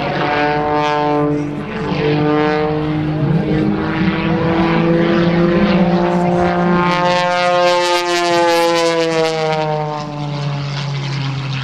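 Modified Pitts aerobatic biplane's piston engine and propeller at high power through aerobatics, the pitch swinging up and down. In the second half it sweeps down in a long fall as the plane passes by low.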